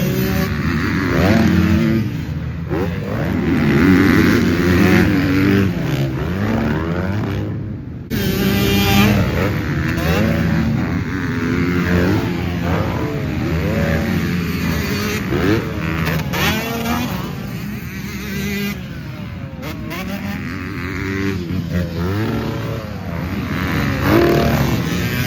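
Motocross dirt bike engines revving hard on the track, the pitch climbing and dropping back again and again as the throttle is opened and shut. The sound breaks off briefly about eight seconds in.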